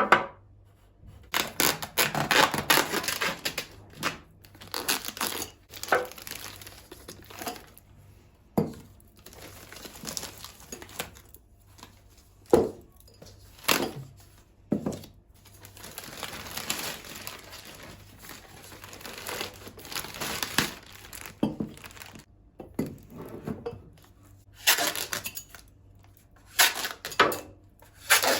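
Packaging crinkling and tearing as it is handled, with sharp knocks of items being set down.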